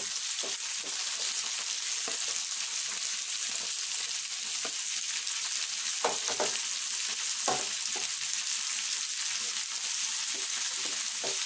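Chopped onions and tomatoes sizzling steadily in hot oil in a kadai. They are stirred, with a few short knocks and scrapes against the pan, the strongest about six and seven and a half seconds in.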